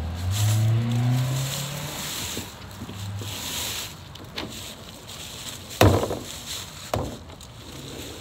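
Plastic wheeled trash can's lid flipped open, banging once against the back of the bin about six seconds in, with a smaller knock a second later. Before that, a low hum rises in pitch over the first two seconds.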